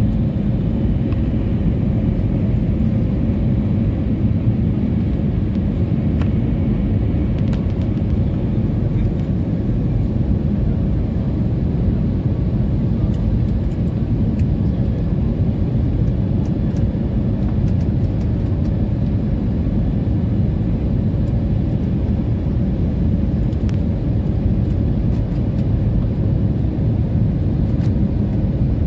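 Steady low rumble of engine and airflow noise inside the cabin of an Airbus A320neo in flight on approach to land, with a faint steady hum above it.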